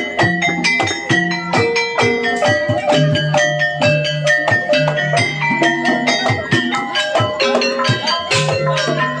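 Javanese gamelan music accompanying a kuda kepang dance: tuned metal percussion and drums playing a fast, dense, unbroken pattern of struck notes.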